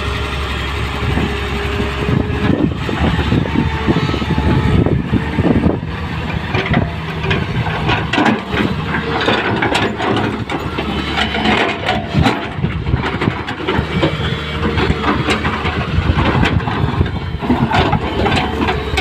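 Diesel engine of an L&T Komatsu 200 hydraulic excavator running steadily while working, with frequent knocks and clatter.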